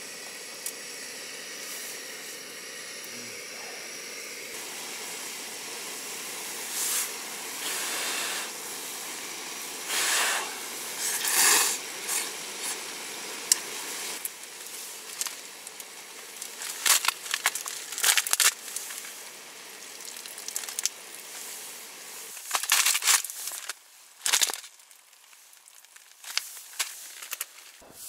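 Instant ramen sizzling and steaming in a frying pan over a gas-canister stove: a steady hiss, then many short, louder crackling bursts. The steady hiss drops away sharply near the end.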